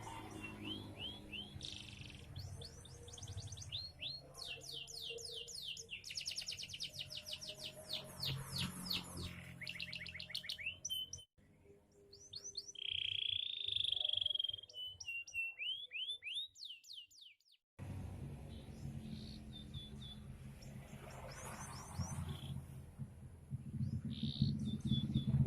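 Carrot-yellow domestic canary singing: fast trills of rapidly repeated chirps and rolls, with a held whistling note about halfway through, over a low steady hum. The song breaks off briefly twice.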